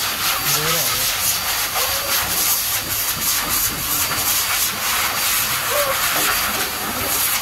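High-velocity pet blower dryer blowing a steady loud rush of air through its hose nozzle onto a wet dog's coat, the hiss wavering as the nozzle is moved over the fur.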